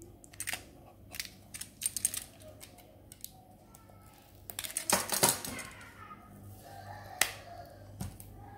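Handling noises from unboxing a clear plastic earphone case with a snap-off utility knife: short scrapes and clicks of the blade and plastic. A louder stretch of scraping and rustling comes about five seconds in, then a single sharp click about two seconds later.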